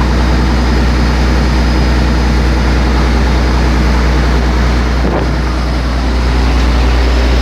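Steady, loud low drone of a boat's engine running underway, with a constant rush of noise over it.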